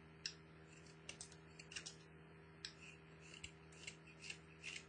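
Beavercraft C14 whittling knife paring thin shavings from a stick of wood. It makes a series of short, faint slicing scrapes, about a dozen, unevenly spaced, as the sharp blade cuts a flat.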